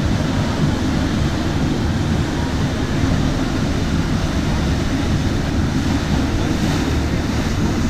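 Steady wind buffeting the microphone, with water rushing and churning in the wake of a catamaran under way.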